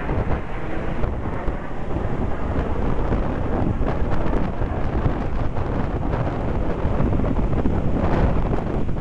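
Strong wind buffeting the microphone, a steady low rumble, with the distant jet noise of the Red Arrows' BAE Hawk jets mixed in underneath.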